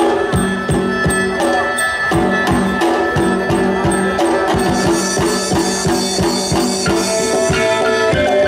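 Isan pong lang folk ensemble playing a lively dance tune: sustained melody lines over a steady drum beat of about three strokes a second, with jingling percussion.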